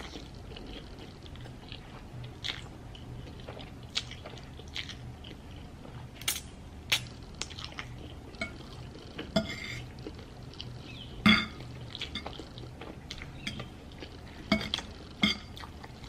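A metal fork clinking and scraping against a ceramic plate as noodles are picked up, with chewing in between. There are scattered sharp clinks, about eight strong ones spread out.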